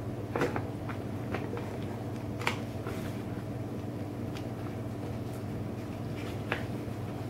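A cat nosing and brushing against a plastic bag of dry cat food and stepping on a vinyl floor: a few short, scattered crinkles and ticks, the clearest about half a second and two and a half seconds in. Under them runs a steady low hum.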